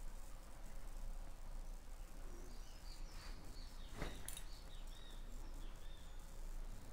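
Faint background noise over a steady low hum, with a few faint high chirps in the middle and a single click about four seconds in.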